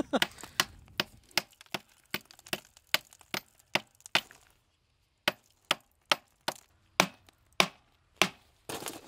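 Small hammer striking the concrete lining of an old safe and chipping it away: a steady run of sharp knocks, about two and a half a second, broken by a short silent gap about halfway through.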